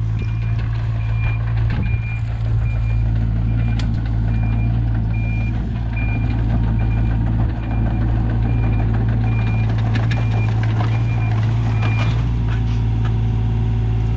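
A backup alarm beeps in a steady high-pitched rhythm, under one beep a second, over a machine's engine running steadily; the beeping stops near the end.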